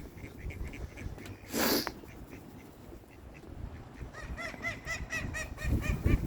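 Ducks quacking: a quick run of repeated quacks about four seconds in, with fainter calls before it. A brief rush of noise sounds about a second and a half in.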